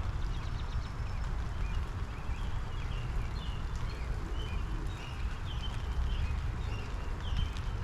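Steady rain shower falling, with scattered sharp drips and taps, while small backyard birds chirp in short repeated calls.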